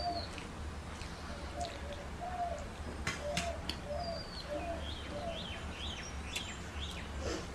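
Birds calling: a short call repeated about twice a second, then a run of higher chirps near the end, over a low steady hum. A few faint clicks from hands on steel plates in the middle.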